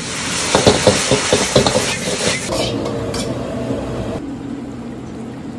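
Metal ladle clanking and scraping against a steel wok as lo mein noodles are tossed over a high flame, with a steady sizzle underneath. The knocks come thick and fast for the first two seconds or so, then thin out, and the sizzle drops away sharply about four seconds in.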